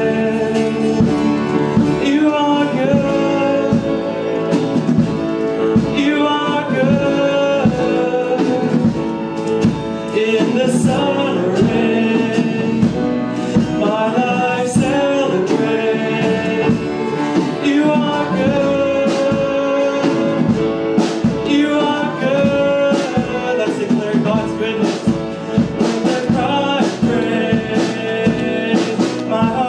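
A song with singing over a guitar-led band, with a steady beat.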